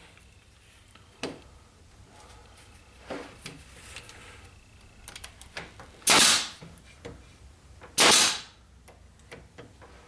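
A Bostitch pneumatic nailer fires twice, about two seconds apart, driving nails through oak edge banding into a desktop panel. Each shot is a sharp crack that tails off briefly. Fainter knocks and clicks between the shots come from handling the work.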